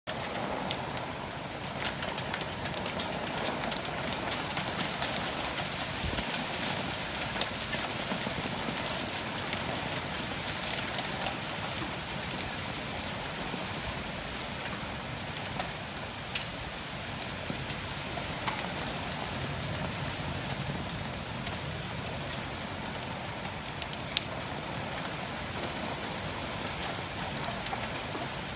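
Heavy rain falling steadily in a downpour, an even hiss with scattered sharp ticks of drops striking close by.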